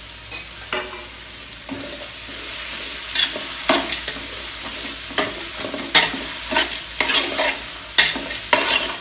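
Sliced onions sizzling in hot Dalda in a large metal pot as they are sautéed and stirred with a metal spoon. The sizzle grows about two seconds in, and the spoon scrapes and clinks against the pot about once or twice a second.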